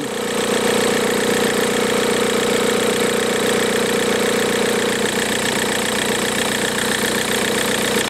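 VW Golf MK4 TDI diesel engine idling steadily, with the worn auxiliary belt tensioner pulley vibrating hard and its bearings adding a loud, steady mechanical noise. This is the sign of a failing accessory belt tensioner with worn bearings.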